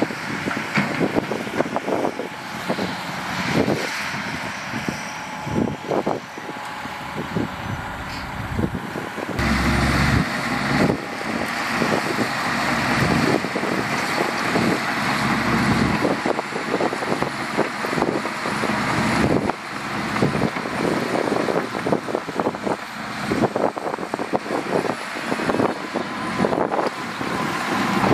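Heavy earthmoving machinery running. First a tipper truck's diesel engine with its raised bed emptying soil. About nine seconds in, the sound changes to a Shantui crawler bulldozer's diesel pushing soil with its blade, with many clanks and knocks.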